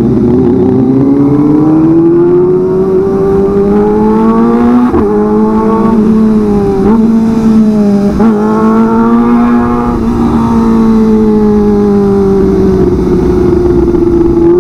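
Kawasaki ZX25R's four-cylinder engine with a racing exhaust, under way at a steady high note. It climbs slowly over the first few seconds, dips briefly three times in the middle, then eases off toward the end.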